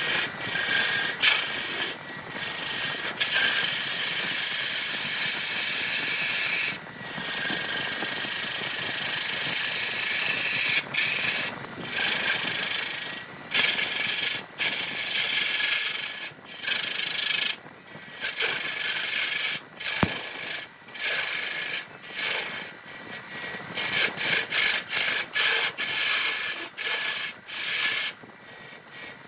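Electric power tool sanding wood: a steady high motor whine under a loud hiss of abrasive on wood, broken by many short breaks as the tool lifts off, coming more often in the second half.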